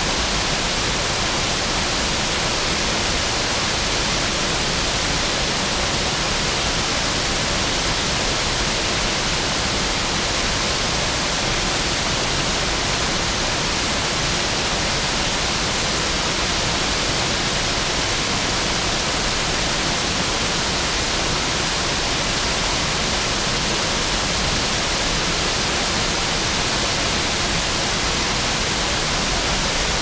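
Small waterfall: water pouring in several streams over a low stone dam and splashing onto the rocks below, a steady, unchanging rush.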